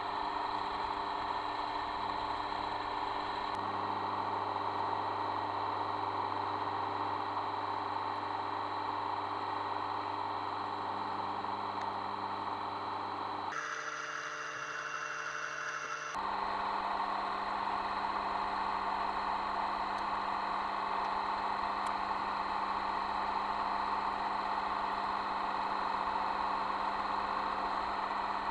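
Mini lathe running under power, its motor and gear drive giving a steady whine with several pitches while a metal bar is turned. For a couple of seconds near the middle the whine changes to a different set of pitches, then returns.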